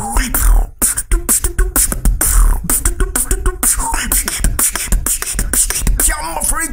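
Beatboxing: a fast, dense run of vocal drum hits and clicks over a deep, steady bass, with short pitched vocal sounds mixed in.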